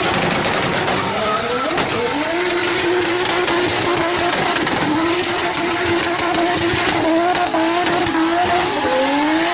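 Turbocharged car engine running hard, with a thin high-pitched turbo whistle above it. The engine note holds steady through the middle and rises near the end.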